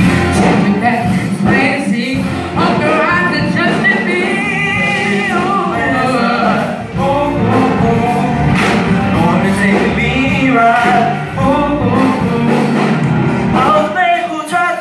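A song with sung vocals over instrumental backing, the singing wordless or held notes with a gospel or choir feel.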